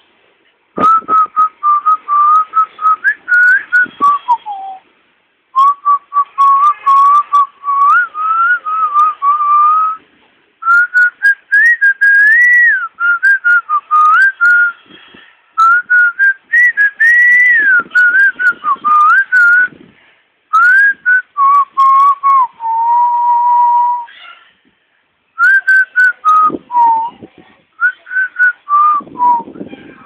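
A person whistling a wandering tune in phrases of a few seconds, separated by short pauses and including one longer held note, with scattered clicks.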